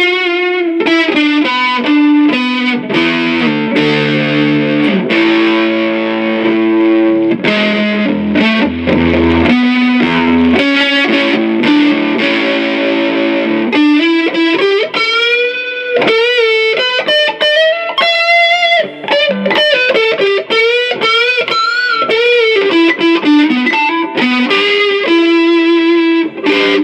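Distorted electric guitar, an Ibanez GIO on its Lace Deathbucker neck pickup played through a Fender Princeton 112 Plus amp: chords and low riffs for about the first half, then single-note lead lines with bends and vibrato, cutting off at the end.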